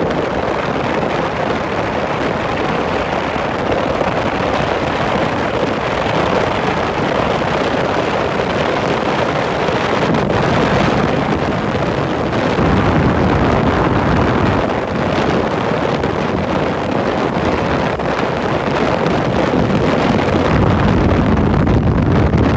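Motorcycle riding along, heard from on the bike: a steady, dense rush of wind buffeting the microphone over the running engine and road noise, with the low rumble growing stronger near the end.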